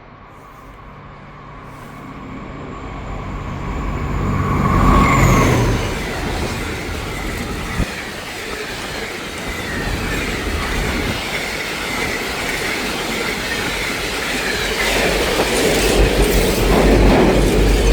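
A train passing at speed. It builds up from a distance, and its high whine drops in pitch as the front goes by about five seconds in. The rumble and rattle of the carriage wheels on the track follow, swelling again near the end before cutting off.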